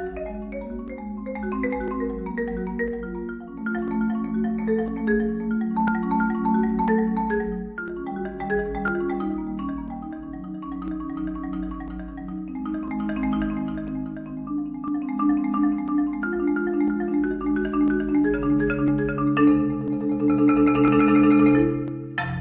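Marimba One marimba played solo with mallets: a flowing stream of many notes over long held tones, building near the end to a loud, fast passage that stops abruptly.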